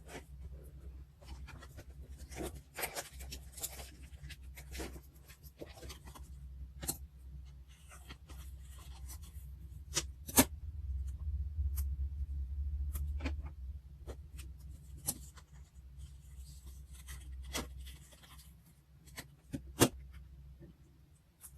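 Paper and stationery being handled on a desk: irregular rustling and scraping with many small sharp clicks and taps, two of them louder, about ten seconds in and near the end, over a low steady hum.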